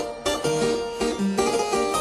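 Background music: a quick melody of short pitched notes, one after another.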